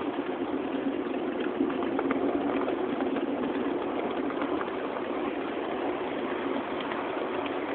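Ride-on 7.5-inch gauge miniature train rolling along its track, a steady running hum with a few small clicks from the wheels.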